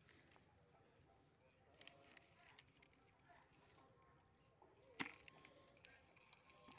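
Near silence with a few faint ticks, and one sharp knock about five seconds in as a soil-covered clump of wild turmeric rhizomes is set into a metal bucket.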